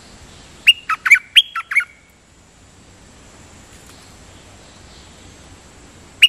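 A caged decoy songbird (Thai 'nok dok taeng') calling: a quick phrase of about seven sharp notes, each falling in pitch, about a second in. The same phrase starts again right at the end.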